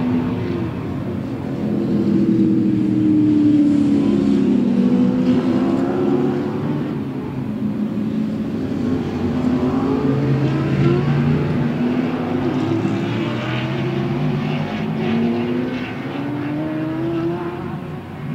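Several race-prepared muscle cars running through a corner, their engines overlapping with notes rising and falling as they accelerate and pass. One car passes close about ten seconds in.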